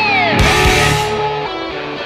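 A Formula 1 car's high engine note dropping sharply in pitch as it passes, followed by a short loud noise burst and an electric-guitar rock song.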